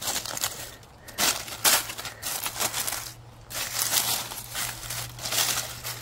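Dry fallen leaves crunching and rustling in irregular bursts: a few separate crackles in the first half, then a denser run of rustling after the middle.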